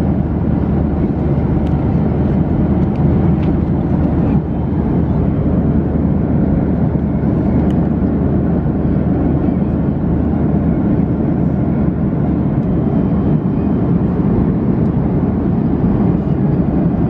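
Steady low cabin noise of a Boeing 737-800 airliner in flight, heard from inside the passenger cabin: engine and airflow noise with no change in pitch or level.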